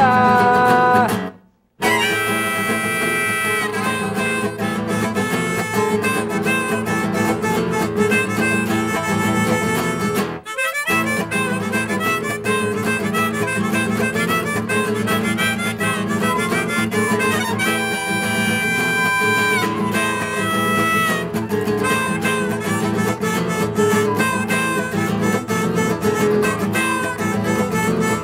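Instrumental folk music: a classical guitar strummed under a harmonica played from a neck rack, with a flute joining in. The music cuts out for a moment about a second and a half in, then carries on.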